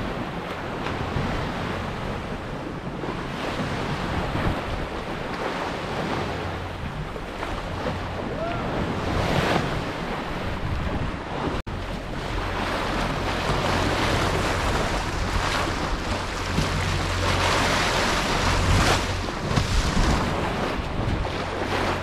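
Water rushing and splashing along a sailboat's hull and bow wave as it sails, with wind buffeting the microphone.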